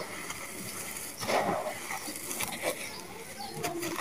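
Dry sand-and-cement mix crumbled in bare hands and sifted back into the tub: gritty crunching with a patter of falling grains and small stones, and a louder crunch about a second in.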